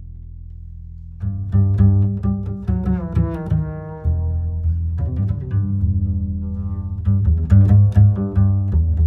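Background music led by low strings, double bass and cello, with plucked and bowed notes in a moving melody; the first second holds only a low held note.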